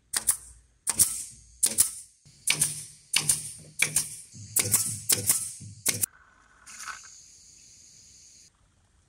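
Pneumatic nail gun firing nails into a wooden batten, about ten sharp shots at a steady pace of roughly one every 0.7 seconds. A steady high hiss follows for about two seconds.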